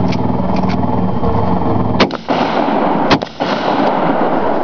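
A boat motor running steadily, then two loud gunshots about a second apart, the first about two seconds in, each followed by a rolling echo.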